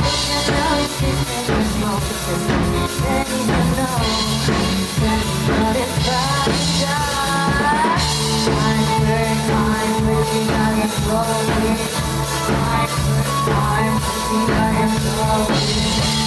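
Band music with a drum kit and a steady beat, an instrumental passage with gliding melodic lines and no sung lyrics.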